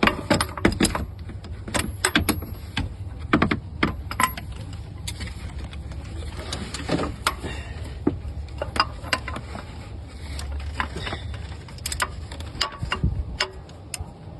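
Irregular metallic clicks, clinks and knocks from hand tools and parts being worked in a pickup's engine bay during a serpentine belt install, over a steady low hum.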